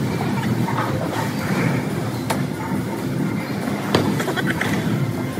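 Bowling alley din: a steady low rumble of balls rolling down the lanes, with two sharp knocks, one about two seconds in and one about four seconds in, the second as a bowling ball is released onto the lane.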